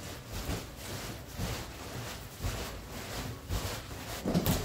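Large cardboard boxes being handled, the inner box shifting and scraping against the outer one with irregular rustles and light knocks, and a louder bump near the end.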